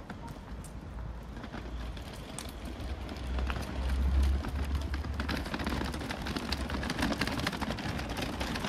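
City street ambience heard on foot: a low rumble that swells to its loudest about four seconds in, over scattered light taps and clicks.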